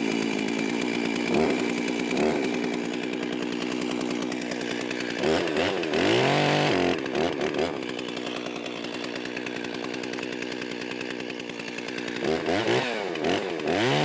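Chainsaw engine idling, then revved up hard and let back down about five seconds in, with a few quick short revs near the end, as its chain brake is tested.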